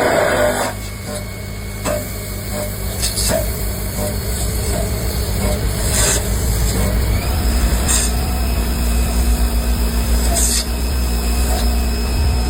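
CNC lathe running a step-turning cut: a steady low machine hum that grows a little louder about halfway through, with a thin high whine, and a few sharp clicks spread across the cut.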